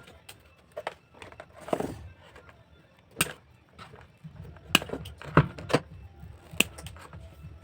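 Scattered sharp clicks and knocks, about eight of them at irregular intervals, with a short rustle nearly two seconds in: handling and tapping of craft materials while a cardboard model is being built.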